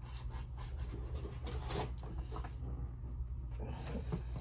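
Hands handling small objects at a desk: soft rustling and light taps and clicks, one sharper click about two seconds in, over a steady low hum.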